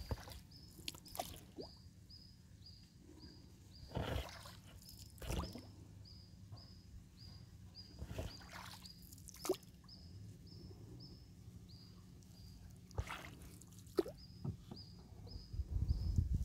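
A long wooden oar dipping and splashing in canal water as a small wooden boat is rowed, with a few short splashes and knocks several seconds apart. A faint high chirp repeats about twice a second behind it.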